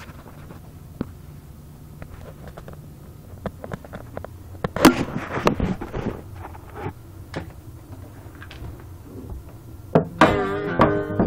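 Handling noise: scattered knocks and clicks over a steady low hum, with a louder cluster of knocks about five seconds in. About ten seconds in, a guitar comes in with a ringing chord as the playing starts.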